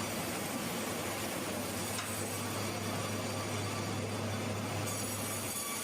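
Sawmill machinery running with a steady low hum and an even mechanical noise, without distinct cutting strokes or knocks.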